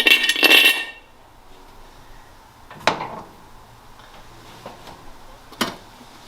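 Light metal clinking and rattling for about a second as the truck's air cleaner is handled, then two single sharp knocks a few seconds apart.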